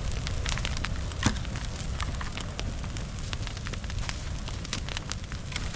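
Outdoor brush fire crackling and popping with many sharp, irregular snaps over a low steady rumble.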